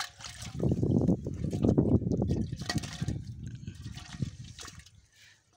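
Wet rustling and crackling as hands pick through waterlogged weeds and mud on a plastic tarp. It is loudest for about the first three seconds, then fades and thins out.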